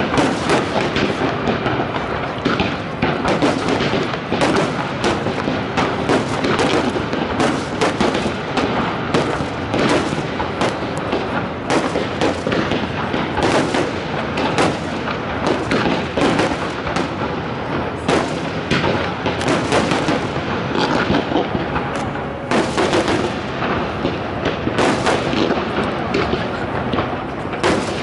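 Fireworks display: aerial shells bursting in a rapid, near-continuous barrage of bangs with no pauses.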